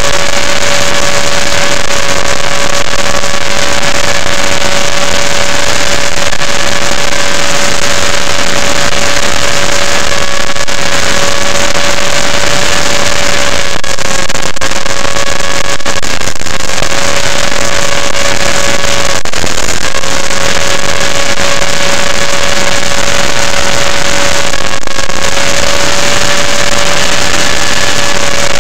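Align T-Rex 500 electric RC helicopter in flight, heard through its onboard keychain camera: a loud, steady whine over heavy wind and rotor-wash noise, its pitch dipping briefly a few times as the helicopter manoeuvres.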